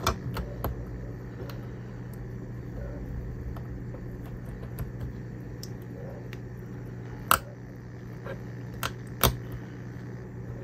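Small clicks and taps of fingers handling tiny drone electronics as a video transmitter board is pressed onto the flight controller stack, with two sharper clicks a little after halfway and near the end. A steady low hum runs underneath.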